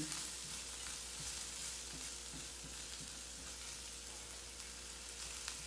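Shredded cabbage and carrots sizzling steadily in hot olive oil in a stainless steel frying pan, stirred with a wooden spatula.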